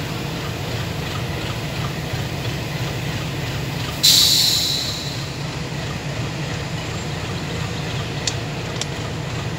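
Distant diesel passenger train moving off from the station: a steady low rumble. About four seconds in there is a sudden loud hiss that fades over about a second, and two faint clicks come near the end.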